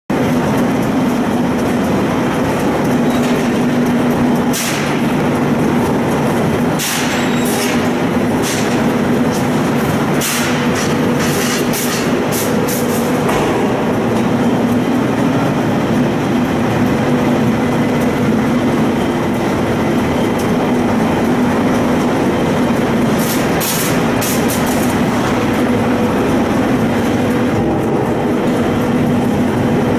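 Steady machinery noise from a steel-drum painting line, a constant humming drone. Short sharp noises come now and then, bunched between about 5 and 13 seconds in and again around 23 to 25 seconds.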